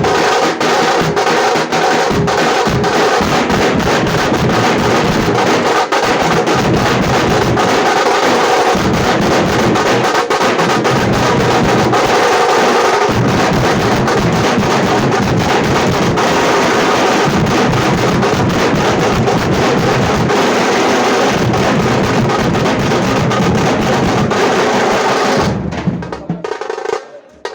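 Tamate, a leather-headed folk frame drum of Karnataka, beaten with sticks in a fast, dense, steady rhythm. The drumming stops abruptly about 25 seconds in.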